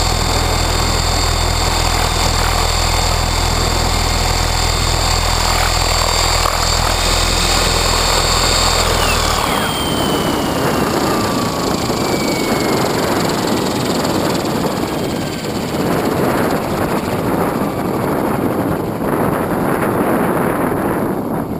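Align T-Rex 600E Pro electric RC helicopter's motor and rotor running steadily, then spooling down about nine seconds in with a whine that falls in pitch. After that, strong wind buffets the microphone.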